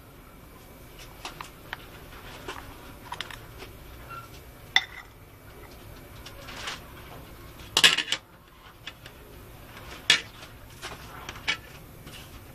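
Scattered light clinks and taps of a serving utensil against a bowl as stew is spooned and arranged, with a few louder knocks in the second half.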